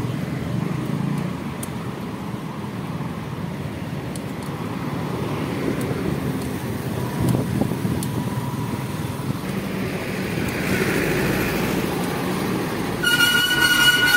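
Road traffic heard from a moving bicycle: motorbike and car engines and tyre noise. Near the end a loud vehicle horn with several tones starts blaring, from a bus drawing alongside.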